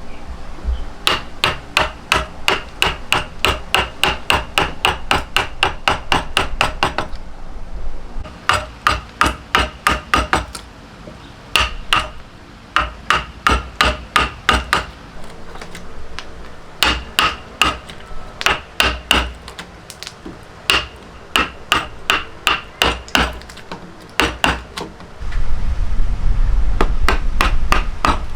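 Hand hammer blows struck in quick runs of about three a second, each blow ringing briefly, with short pauses between the runs. A low rumble joins near the end.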